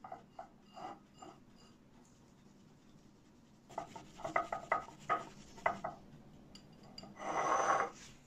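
Bamboo matcha whisk (chasen) scraping and swishing through matcha in a ceramic bowl. A few short strokes, a pause, then a run of quick separate strokes, and near the end a fast continuous whisking lasting about a second, the loudest part, as the tea is frothed.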